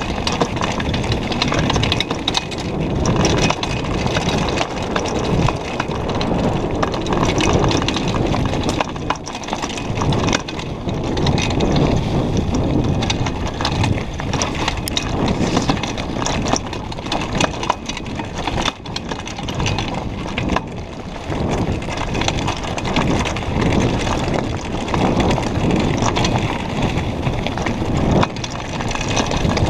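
Mountain bike riding downhill over a loose, rocky gravel trail: tyres crunching on stones and the bike rattling with many short, sharp knocks, over a steady low rush.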